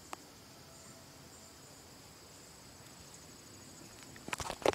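Faint, steady high-pitched trilling of insects in the grass. A single small click just after the start, then from about four seconds in a run of loud knocks and rubbing as the handheld camera is handled.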